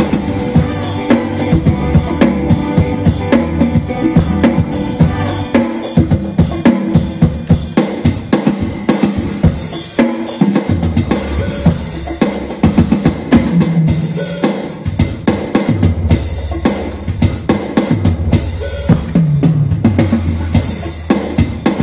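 Background music with a steady drum-kit beat, bass drum and snare, under sustained pitched instruments.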